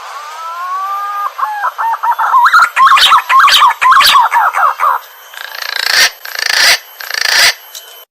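Green pigeon (punai) call: a long, slightly rising whistled note, then a run of quick warbling whistles, then three harsh rasping notes near the end. This is the bird's call as used to lure wild punai.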